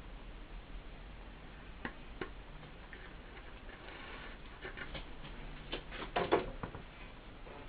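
Light clicks and taps from hands handling a woofer's surround and frame, scattered at first, then a denser run of clicks with the loudest about six seconds in, over a steady low hum.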